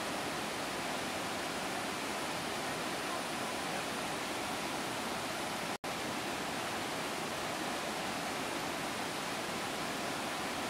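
Athirappilly Falls in full monsoon flood, a dense, steady rush of falling water. The sound cuts out for an instant about six seconds in.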